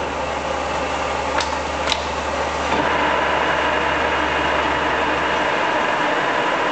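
Cincinnati-Bickford radial arm drill running, its spindle turning and power-feeding down with a steady mechanical whir that sounds healthy. Two sharp clicks come about a second and a half in, and the sound grows a little louder just under three seconds in.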